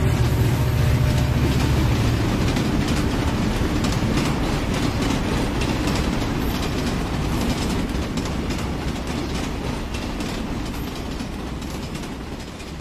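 Passenger train passing: a heavy low rumble at first gives way to the clickety-clack of wheels over rail joints, fading steadily as the train moves away.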